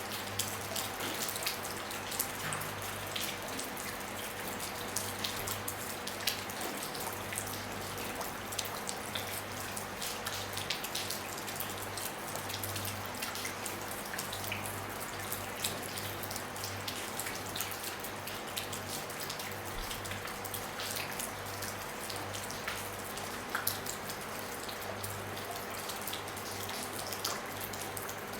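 Rain falling on a roof: a steady patter made of many separate drops and drips.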